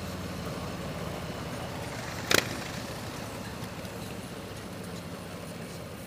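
2017 Harley-Davidson Street Glide Special's Milwaukee-Eight 107 V-twin running steadily while riding, under wind and road noise. A single sharp click a little over two seconds in is the loudest sound.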